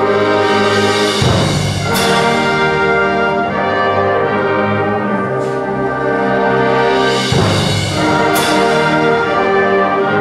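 Orchestral music with brass holding long chords that change twice, and two sharp crashes about six seconds apart.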